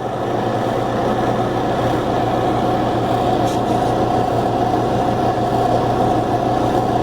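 A machine running with a steady mechanical hum and a clear steady tone, holding evenly with no knocking.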